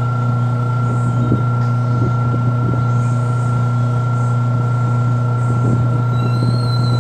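Washing machine spin motor running with a steady electrical hum and a thin high whine over it.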